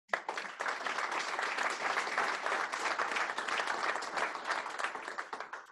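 Audience applauding at the close of a lecture: a steady patter of many hands clapping that begins abruptly and dies away near the end.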